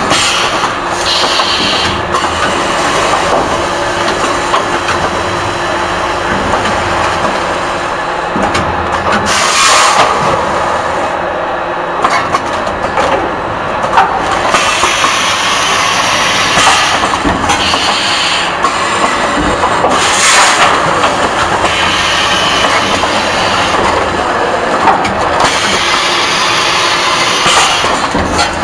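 Automatic pouch packing machine running with a steady mechanical clatter. Several short hissing bursts of air from its pneumatic cylinders break in at uneven intervals.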